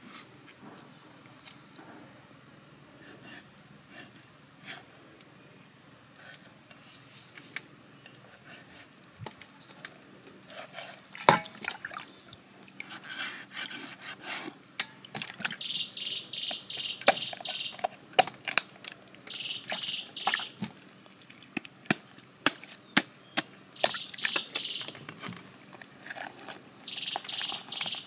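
Water splashing and dripping in a stainless steel bowl as a whole raw chicken is lifted out and washed in it, with sharp clicks and taps against the bowl; the splashing starts about ten seconds in. A few short high buzzing bursts come through in the second half.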